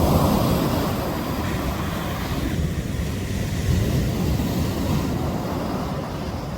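Sea waves breaking and washing on the shore: a steady surf rush, loudest at the start and slowly easing off.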